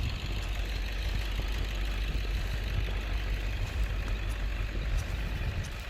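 Four-wheeler (ATV) engine running steadily at low revs, a constant low rumble.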